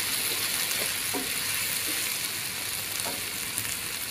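Chopped chilies, green tomatoes, onion, garlic and aromatics sizzling steadily in oil in a nonstick wok while being stirred with a wooden spatula.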